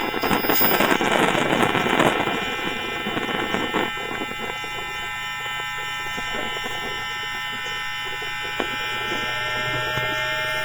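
Electrical whine of a London Underground 2009 Tube Stock's Bombardier IGBT VVVF traction equipment picked up through a telephone pickup coil: many steady high tones held at constant pitch, under a crackling hiss that dies down about four seconds in.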